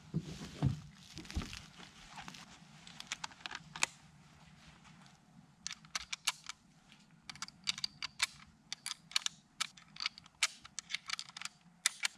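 Gear being handled at the back of a car: a few low thumps and some rustling at the start, then a long run of quick, irregular light clicks and ticks from about halfway on.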